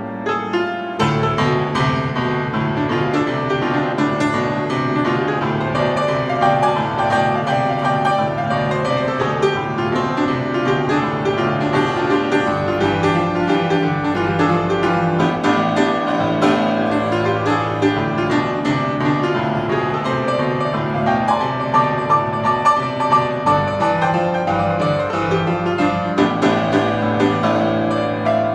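Solo grand piano played continuously, with busy runs of notes over a steady bass line.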